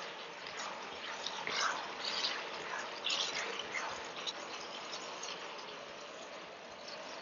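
Diced chicken and vegetables sizzling in a hot wok while a wooden spatula stirs and scrapes them, with several louder scraping strokes in the middle. Near the end a bowl of sauce is poured in.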